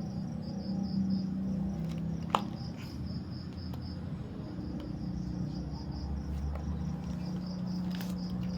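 Insect chirping in a steady, evenly pulsed high trill, about four pulses a second, over a low hum; a single sharp click a little over two seconds in.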